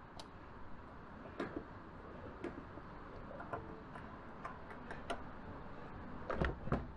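Petrol pump nozzle handled in a car's fuel filler neck during refuelling: scattered light clicks and knocks over a low steady hum, with a cluster of sharper clicks near the end as the nozzle is put back on the pump.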